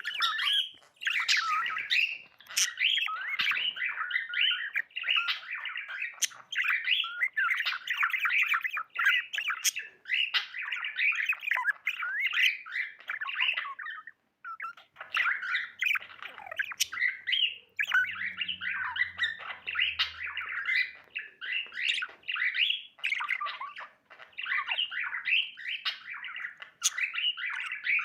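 Pet budgerigar chirping in a continuous stream of short, quick notes, with a brief pause about fourteen seconds in.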